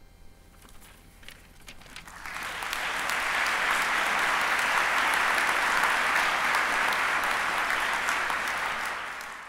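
Audience applauding: a few scattered claps at first, swelling into full, steady applause about two seconds in, then beginning to fade near the end.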